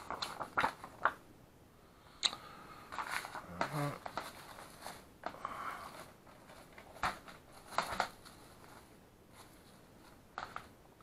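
Intermittent crinkling and rustling of clear plastic wrap and a padded paper mailer being handled, with light clicks and taps scattered throughout.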